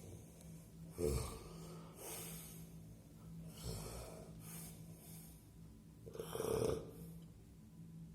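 A man snoring heavily in his sleep, a snoring the uploader links to sleep apnea. Three snoring breaths come about two and a half seconds apart, each a rasping in-breath followed by a softer hissing out-breath, the third the loudest. A faint steady hum runs underneath.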